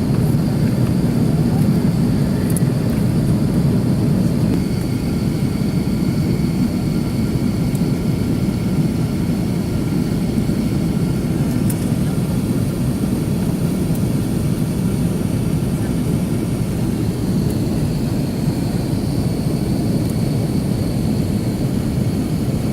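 Steady cabin noise of an Airbus A330-300 in flight: the deep rumble of its Rolls-Royce Trent 700 jet engines and the airflow, with faint high engine whine tones over it. The level eases slightly about four to five seconds in.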